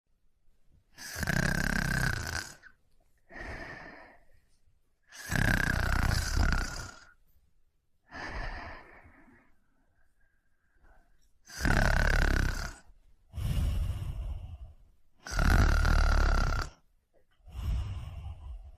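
Snoring in a slow, regular rhythm: four loud, rasping snores about a second and a half long, each followed by a softer, shorter breath.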